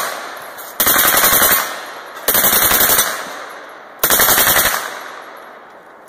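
Lage MAX-11 mkII open-bolt submachine gun firing three full-auto bursts, each about three-quarters of a second long and about a second and a half apart, each leaving a fading echo.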